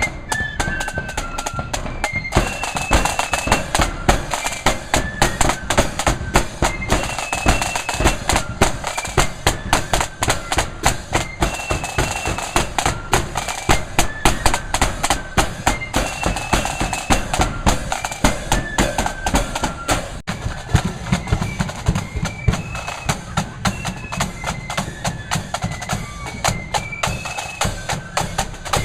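Marching flute band playing a tune: flutes carry a high melody over a steady beat of snare and bass drums.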